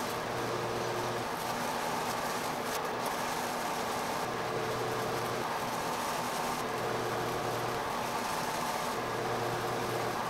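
CatGenie self-washing litter box running its cleaning cycle. Its motor hums steadily while the scoop arm turns through the bowl of washable plastic granules.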